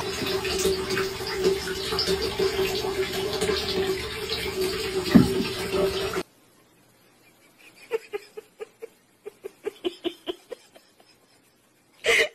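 Bathwater splashing and running with a steady hum underneath. It cuts off abruptly about six seconds in, leaving near quiet with a quick run of short faint plinks, and a brief loud burst at the very end.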